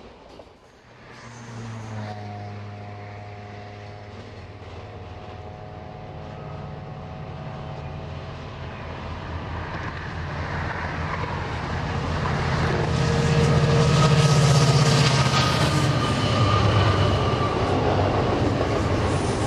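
Diesel locomotives hauling a freight train approach and pass, with a steady low engine note and wheel-on-rail noise. The sound grows gradually louder to a peak about fourteen seconds in.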